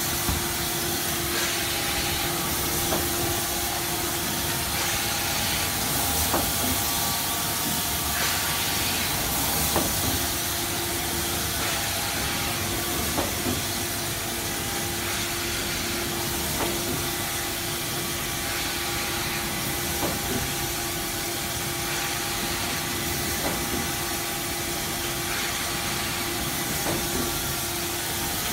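Automatic sheet-fed screen printing machine running: a steady hum and hiss, with short clicks and knocks from its feeder and printing mechanism every second or few.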